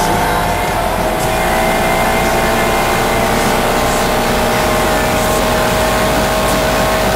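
Yamaha Wolverine 450 ATV's single-cylinder four-stroke engine running hard at a steady high pitch while the quad accelerates at speed, with a dense rushing noise over it.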